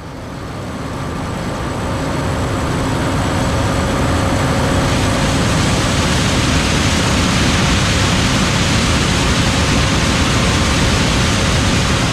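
John Deere S7 800 combine running while harvesting corn: a steady, dense machine drone with a few faint steady whines. It grows louder over the first couple of seconds and then holds level.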